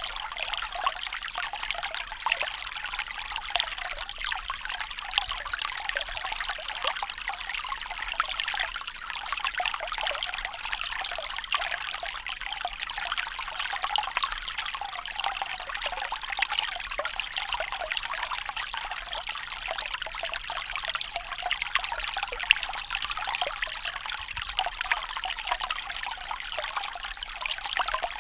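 Small stream rippling and trickling, a steady fine babble of water with many small splashes.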